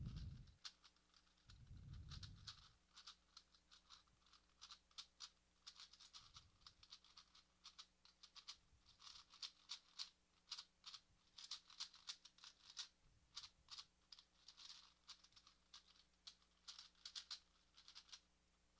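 ShengShou 4x4 cube being turned fast: its plastic layers click and clack faintly in quick irregular runs, with a soft thump about two seconds in. The cube is really loose even after tightening, its pieces flopping around.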